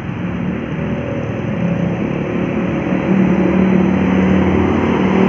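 Heavy diesel vehicle engine labouring up a steep climb under load, with a deep steady note that grows louder about three seconds in as it draws near.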